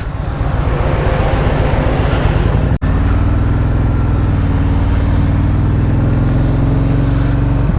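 Indian Challenger's V-twin engine running steadily at cruising speed over a rush of wind and road noise. The sound drops out for a moment about a third of the way in, and after that the engine note is steadier and stronger.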